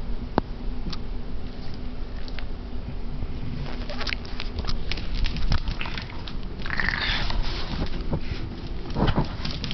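Boston Terrier puppy biting and tussling with a stuffed toy: irregular patters, clicks and scuffles, with a longer noisy burst about seven seconds in. A steady low hum runs underneath.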